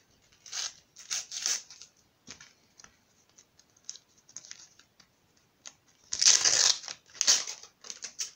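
Paper and foil rustling: a sticker packet being handled and torn open and the stickers inside shuffled. Short scattered rustles, with the loudest, longest crinkle about six seconds in.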